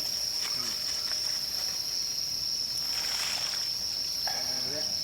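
Fire crackling in a Solo Stove, with scattered clicks and a short hiss about three seconds in, over a steady high-pitched insect trill.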